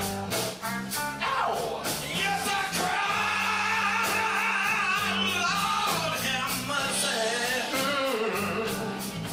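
A male blues singer singing into a microphone with a live band of electric guitar and drums, holding one long wavering note through the middle.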